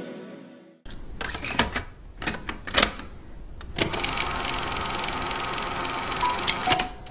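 A pop song fades out in the first second, then a logo-reveal sound effect plays: a run of sharp clicks and snaps, followed by a steady hiss with a few more clicks near the end.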